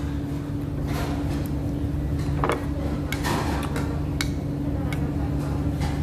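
Metal spoon scraping and clicking against a small bowl while eating: a handful of light, scattered clicks over a steady low hum.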